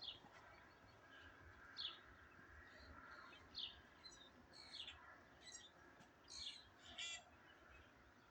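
Faint birdsong: short, high chirps every second or so over a quiet outdoor background.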